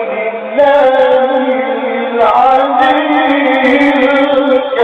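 A man reciting the Quran in a melodic, drawn-out chant, holding long ornamented notes. It breaks briefly about half a second in and again just after two seconds in.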